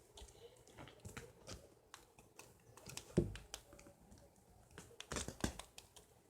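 Faint handling noises: scattered small clicks and rustles, with a soft knock about three seconds in and a few more clicks near the end.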